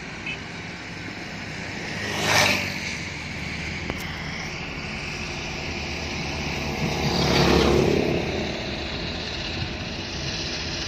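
Steady road and engine noise of a vehicle driving along a road, swelling up and falling away twice, about two seconds in and again about seven and a half seconds in, as other vehicles pass close by.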